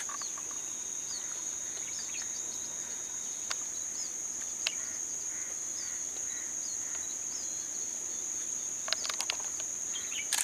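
Insects droning steadily at a high pitch, with scattered faint short chirps and a few sharp clicks, louder near the end.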